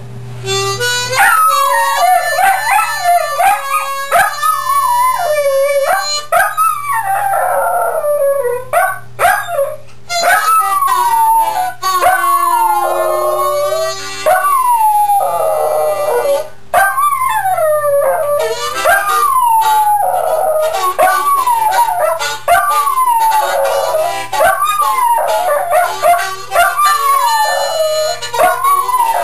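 A dog howling along to a blues harmonica: long, sliding howls, one after another, over the harmonica's held notes. The howling starts about a second in.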